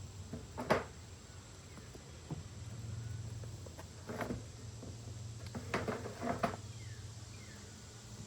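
A few sharp wooden knocks and clacks of beehive parts being handled as the hive is opened, three of them close together about six seconds in, over a low steady hum.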